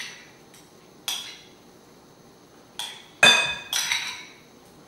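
A metal spoon and glass bowls clinking as chopped green chile is scraped from a small glass bowl into a large glass mixing bowl: a few separate clinks, the loudest a little over three seconds in, ringing briefly.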